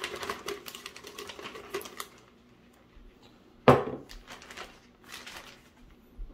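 Plastic zipper bag crinkling and rustling as a thick blended marinade is poured into it, then one sharp knock a little over halfway through as the blender jar is set down on the tiled counter, followed by more bag rustling.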